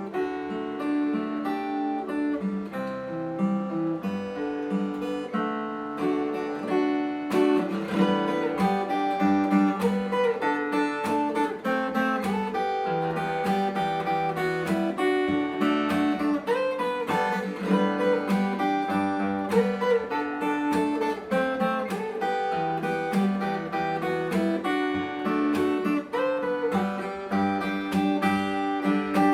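Copy Taylor 314ce acoustic guitar with a sapele back, played fingerstyle: a steady flow of picked melody and bass notes ringing together. The playing stops near the end.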